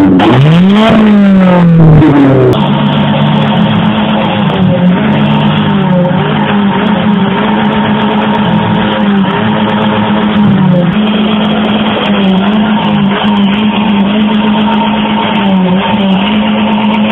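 Car engine revving up and down a few times, then held at high revs with small dips in pitch.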